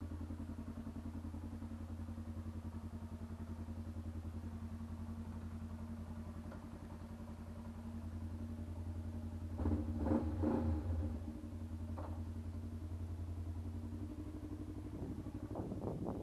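Kawasaki ER-5 motorcycle's parallel-twin engine running steadily at low revs while the bike rolls slowly, with a louder, rougher stretch about ten seconds in and a few knocks near the end.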